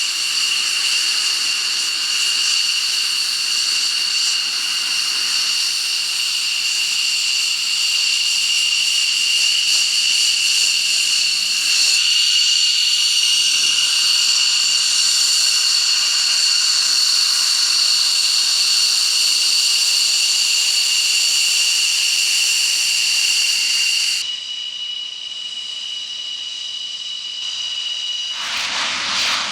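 A jet engine whines steadily at ground idle: a high, whistle-like tone over hiss. About 24 seconds in, the higher part of the whine cuts off and the sound drops to a quieter, thinner whine. A rushing noise swells in near the end.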